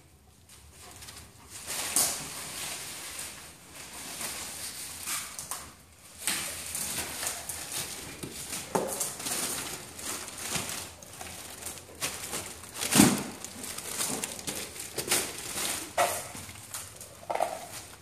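Plastic bubble wrap crinkling and crackling as dogs paw and bite at it, with irregular sharp snaps. The loudest snap comes about two-thirds of the way through.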